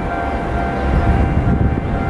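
Railway level-crossing warning alarm with an unusual tone, sounding steadily over a low rumble.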